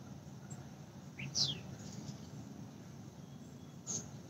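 A bird's short falling chirp about a second in, and a brief high chirp near the end, over a faint steady background hum.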